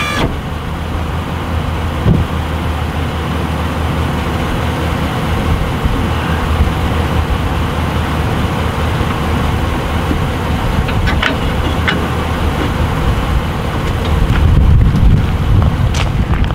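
Vehicle engine running steadily with a low rumble, with a few short sharp clicks about two-thirds of the way through and near the end.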